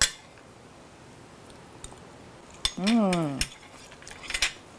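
A woman's closed-mouth "mmm" of enjoyment while chewing a bite of food: one short hum, about three seconds in, that rises and then falls in pitch. A sharp clink of cutlery comes at the start, and a few light clicks come around the hum.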